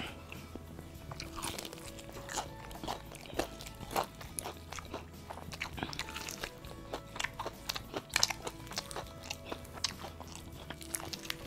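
Crispy KFC fried chicken being bitten and chewed: irregular loud crunches of the breaded coating, the loudest about eight seconds in, over background music.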